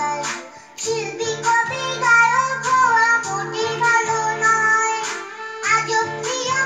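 A young girl singing a Bengali children's song over instrumental backing, with short pauses between sung phrases.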